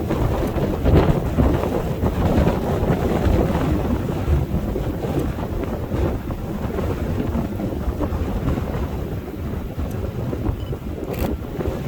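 Gusty wind buffeting the microphone, a rough rumble that rises and falls, with a short click near the end.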